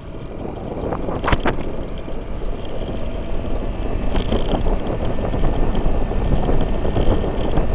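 2003 Honda Metropolitan scooter's 49 cc four-stroke engine running under throttle on the move, mixed with wind rushing over the microphone, growing steadily louder as the scooter speeds up.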